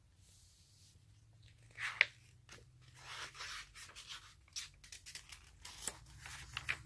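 Paper pages of a paperback picture book being turned by hand: rustling and crinkling in a series of short bursts, after a single sharp tap about two seconds in.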